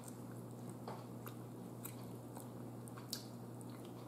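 A person faintly chewing a fried chicken wing, with a few soft mouth clicks scattered through, over a steady low hum.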